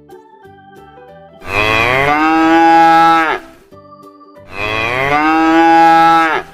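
A cow mooing twice, each moo one long call of about two seconds that rises a little at the start and falls away at the end.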